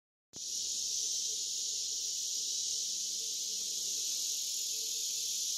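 Steady high-pitched chorus of insects, cutting in suddenly about a third of a second in.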